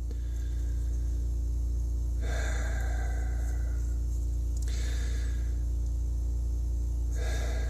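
A man's heavy breathing, about three long breaths of a couple of seconds each starting about two seconds in, over a steady low hum.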